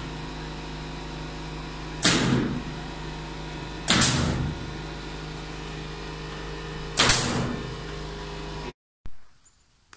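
Nail gun firing three times, each a sharp crack with a short ring, driving 2.5-inch nails through wooden cross braces into the floor joists. A steady machine hum runs underneath, and everything cuts off abruptly near the end.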